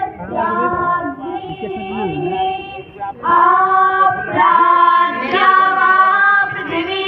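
Young female voices singing a Hindu devotional chant together through a loudspeaker system, in long held notes that grow louder about three seconds in.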